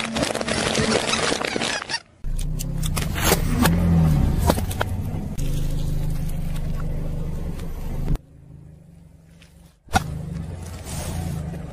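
A car's tyre rolling slowly over objects and crushing them, with the car's engine humming low and steady under scattered crackles and pops as things give way. Several short takes are cut one after another. Near the end a sudden burst and splash come as a container of orange liquid bursts under the tyre.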